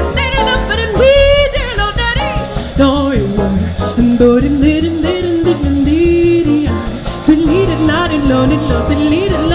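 Female jazz vocalist scat-singing an improvised line that leaps and bends in pitch, over piano, upright bass and drums.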